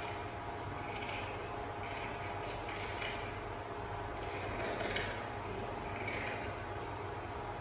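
Scissors cutting, with a short scrapy snip about once a second, over a steady low hum.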